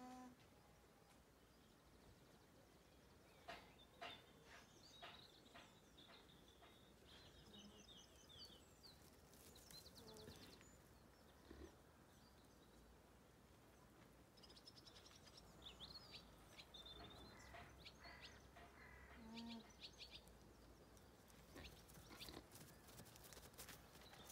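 Near silence with faint birdsong: small birds chirping and calling now and then.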